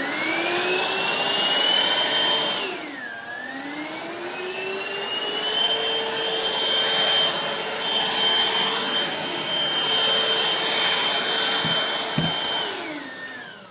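Hoover Cruise cordless stick vacuum's motor spinning up with a rising whine. About three seconds in the pitch dips and it spins back up, then it runs steadily at full speed and winds down near the end. A couple of short knocks come just before it winds down.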